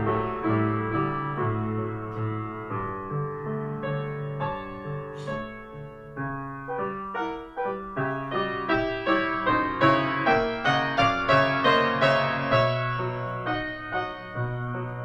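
Solo grand piano playing a classical piece: held bass notes under a melody, dipping quieter midway, then a busier, louder stretch of quick notes before settling again.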